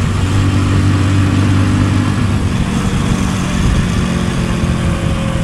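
Motorcycle engine running under way, with wind and road noise on the camera's own microphone. Its steady low note changes about two seconds in.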